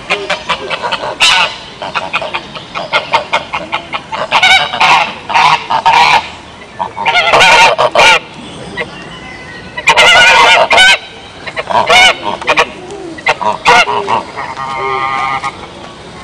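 Geese honking loudly in repeated bouts of calls.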